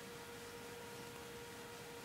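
Faint steady hum, one held tone with weaker higher tones above it, over a low hiss: room tone.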